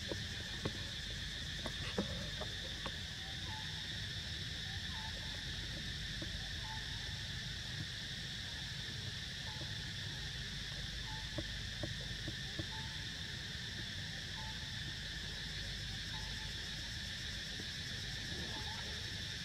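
Steady insect chorus, a continuous high buzzing at several pitches, with faint short chirps repeating every second or two and a few soft clicks, mostly in the first few seconds and again around the middle.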